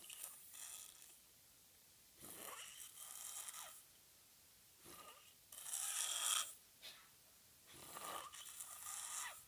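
A sleeper snoring: four rasping snores about two and a half seconds apart, the third the loudest.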